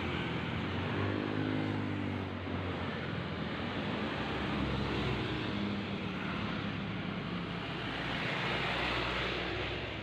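Road traffic: engines of passing vehicles running along a road, one bending up and down in pitch about a second or two in, over a steady tyre and traffic rumble.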